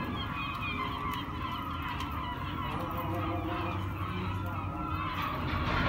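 A large flock of waterbirds calling together: many short calls overlapping without a pause, over a steady low rumble.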